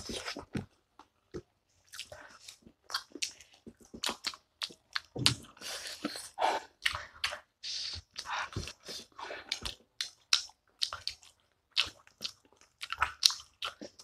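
Two people chewing and biting into chicken feet in a spicy sauce: irregular wet smacks and crunchy clicks.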